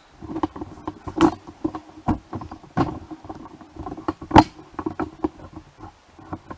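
A person chewing a bite of pumpkin twist, a baked croissant-dough pastry, close to the microphone: irregular wet clicks and smacks, a few of them louder.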